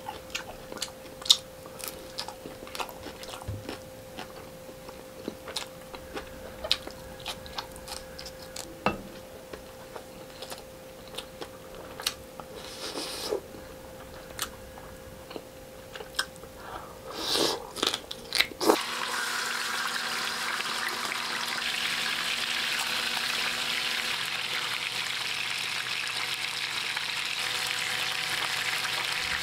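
Close chewing and crunching as fried tilapia and rice are eaten by hand, with scattered mouth clicks. About 19 seconds in this gives way abruptly to the steady sizzle of a whole tilapia frying in hot oil in a pan.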